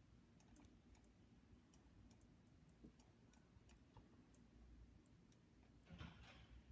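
Near silence with faint, irregular clicks of a computer mouse, and a brief rustle near the end.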